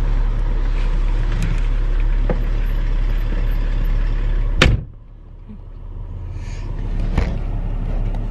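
A car's front passenger door slammed shut about halfway through. Before the slam the running engine and outside noise come in through the open door; after it the cabin is much quieter, with a lighter click a couple of seconds later.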